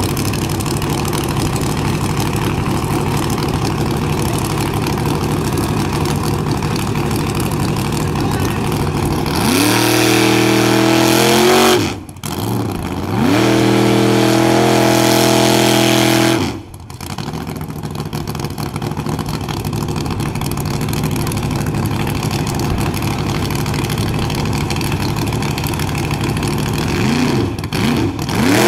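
Car engine running at a rough idle, then revving up hard about ten seconds in. It cuts out abruptly twice and falls back to an uneven idle, then revs up again near the end; the engine is misfiring.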